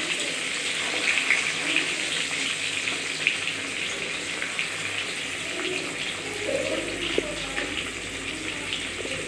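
Rohu fish steaks shallow-frying in mustard oil in a steel kadai: a steady sizzle with scattered small crackles.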